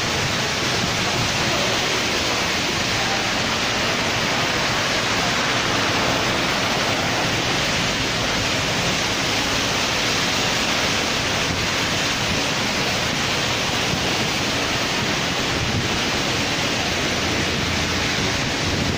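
Heavy rain pouring down in a sudden downpour: a steady, dense hiss that holds at the same level throughout.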